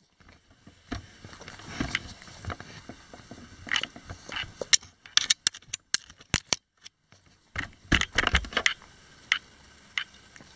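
A small dog scrabbling and pawing close by: irregular clicks and scrapes of claws and paws, busiest about eight seconds in.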